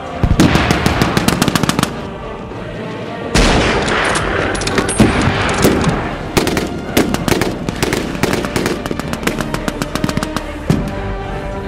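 Rapid machine-gun fire in bursts with scattered rifle shots, over background music: a first burst in the opening two seconds, then near-continuous firing from about three and a half seconds in.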